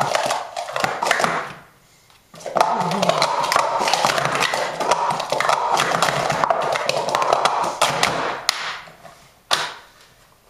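Plastic sport-stacking cups clattering rapidly as they are stacked up and down on a mat in a speed-stacking sequence: a dense run of quick clicks and knocks lasting about six seconds. A brief clatter of cups comes just before it, and a single knock near the end.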